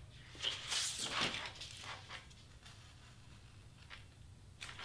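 Craft knife blade scratching through black cardstock as an edge is trimmed by hand: a cluster of short rasping strokes about half a second in, then a pause, and a few more brief strokes near the end.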